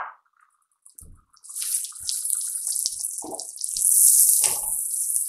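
Onion-tomato paste sizzling in hot oil and butter in a non-stick kadhai while a spatula stirs it; the hiss starts about a second and a half in and then holds steady. The masala is being fried until the oil separates from it.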